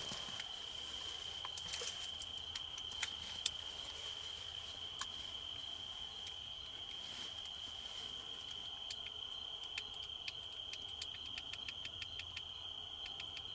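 Crickets trilling steadily at one high pitch through the evening field sound, with scattered faint clicks.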